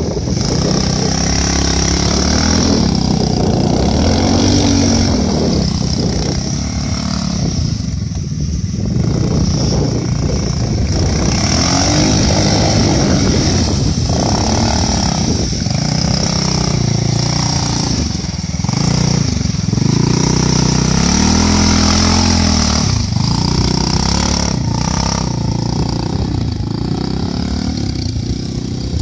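Two-wheel-drive motorcycle's engine revving up and falling back again and again as it pulls under load through soft sand and mud. A steady high-pitched hiss runs under it throughout.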